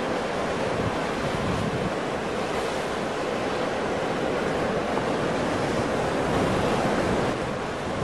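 Ocean surf: waves breaking and washing in a steady rushing roar, swelling a little louder about three-quarters of the way through.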